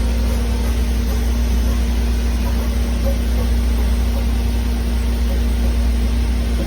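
Doosan Puma 2600SYII CNC lathe running under power: a loud, steady machine hum with a deep drone and a constant mid-pitched tone, holding even throughout.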